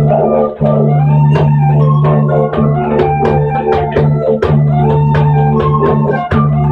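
Didgeridoo playing a steady low drone, cut by short breaks about half a second in, near four and a half seconds and near six seconds. Above it, struck or plucked notes ring out a melody.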